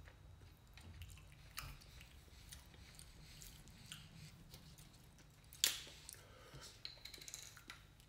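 Close-up chewing and small eating noises, with scattered light clicks of a fork at the plate. About five and a half seconds in, one much louder sharp crack as a plastic water bottle's cap is twisted open.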